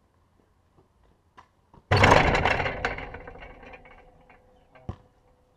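Basketball hitting the hoop and backboard that the camera is mounted on: a sudden loud crash about two seconds in that rattles and rings on for about two seconds as the rim and backboard shake. A few short knocks before and after.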